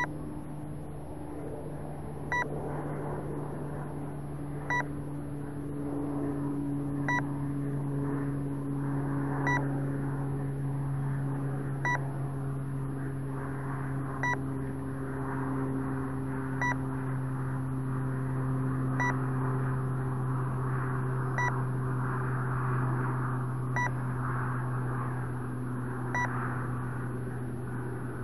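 A short electronic beep repeating about every two and a half seconds from the crashed RC foam plane's onboard electronics, over a steady low hum whose pitch sinks slowly.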